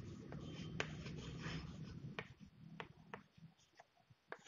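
Faint chalk writing on a blackboard: scratchy strokes with sharp taps for about two seconds, then a few separate light taps as the word is finished.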